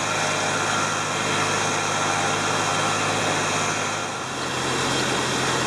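Jeep TJ engine running at a steady idle. Its low hum shifts slightly in pitch about four seconds in.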